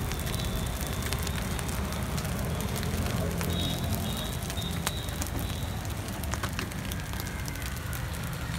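Egg pulao sizzling on a large flat griddle while a flat steel spatula stirs and scrapes it, with scattered sharp clicks of the blade on the plate, over a steady low rumble.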